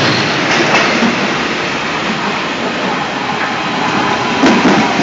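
Railway wagons rolling past, a steady rumble of wheels on the rails. Near the end a Berlin S-Bahn electric train pulls in alongside, with a few wheel clicks.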